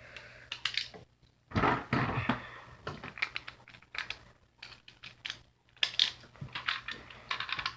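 Hard plastic clicking and clacking as Beyblade parts are handled and snapped back together after a double burst, with a louder clatter about a second and a half in and a run of quick small clicks in the second half.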